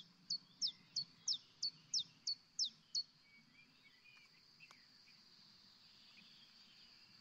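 Common chiffchaff singing: a run of about ten sharp high notes at an even pace of about three a second, stopping about three seconds in. A faint steady high hiss continues beneath.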